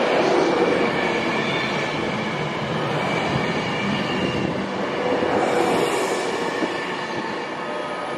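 Class 390 Pendolino electric train running past close by: a continuous rush of wheels on rail with faint steady tones above it.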